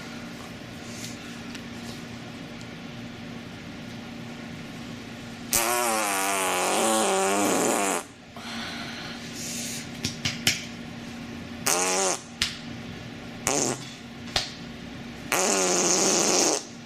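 Fart sound effects over a faint steady hum. About five and a half seconds in comes a long, wavering fart whose pitch falls, lasting about two and a half seconds. A run of short fart bursts follows, then another long one near the end.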